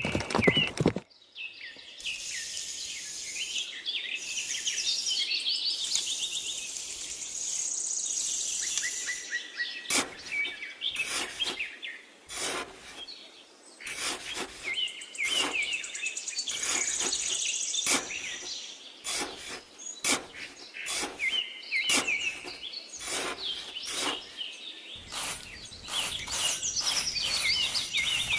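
Small birds chirping over and over throughout. From about ten seconds in, a small trowel scrapes and digs in sand in many short strokes.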